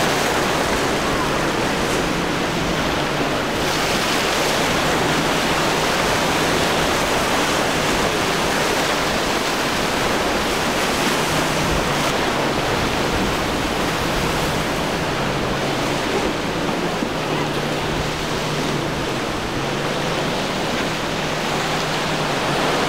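Steady rush of surf and wind, with the faint low hum of a Suzuki outboard motor running underneath; the hum comes and goes.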